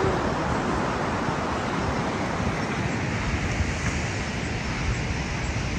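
Steady rushing of a mountain stream, with a low fluttering rumble of wind on the microphone underneath.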